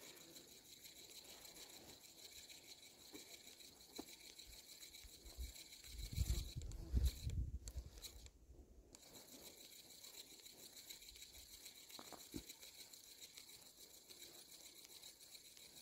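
Spinning reel being cranked to retrieve a popper lure: a faint, fast, even ticking whir that stops briefly twice. Between about six and eight seconds in there are louder low dull thumps and rumbles from rod handling or wind on the microphone.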